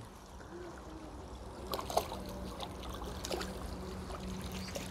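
Faint water splashing and dabbling from a hooked crucian carp being played at the surface on a pole rod, with a few small splashes about two seconds in, over a steady low hum.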